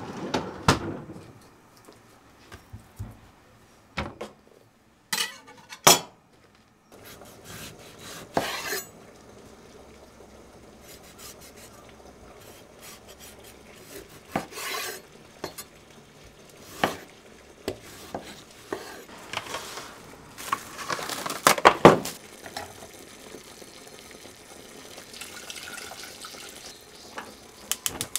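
Kitchen cooking sounds: scattered clinks and knocks of dishes, pots and utensils, and a knife cutting a tomato on a wooden cutting board. The loudest clatter comes about three-quarters of the way through, and a quick run of clicks closes it.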